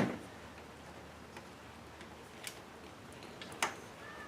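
A few short, sharp clicks, about a second apart, of a screwdriver working at the screws of a car stereo's metal bottom plate.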